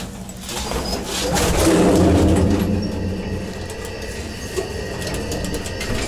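Passenger lift cabin running: a low rumble and hum, loudest about two seconds in, with a thin steady whine through the middle seconds.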